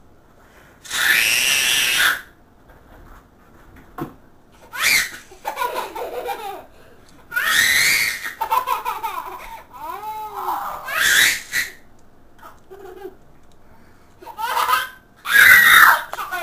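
A toddler and a baby shrieking and laughing at each other in a string of loud, high-pitched bursts with short quiet gaps between, the loudest shriek near the end.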